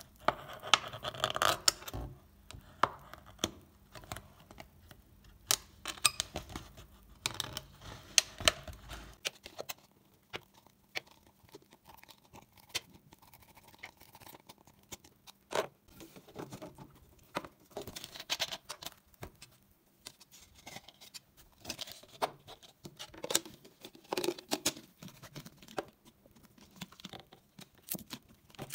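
Thin plastic water bottle crinkling and scratching as hands cut and handle it, with irregular clicks and rustles.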